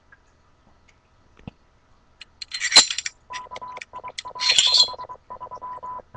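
Parts of a Smith & Wesson SW40VE pistol clinking and scraping as it is stripped, with two louder clusters of clinks about two and a half and four and a half seconds in. From about three seconds on, a choppy stop-start buzz with a steady tone in it runs under the handling.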